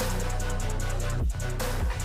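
Background music with a heavy electronic bass and a steady drum beat.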